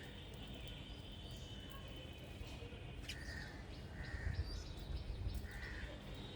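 Small birds chirping: a few short, separate chirps in the second half, over a steady low outdoor rumble.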